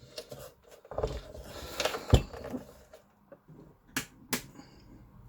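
Handling clicks and knocks from small plastic parts and wires: rustling about a second in, a heavy knock just after two seconds, then two sharp clicks close together around four seconds.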